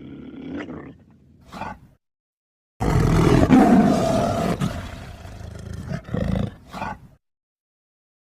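Big cat roaring. A low growl fades out about two seconds in, then after a short dead-silent gap comes a long, loud roar lasting about four seconds that ends in two or three short breathy pulses.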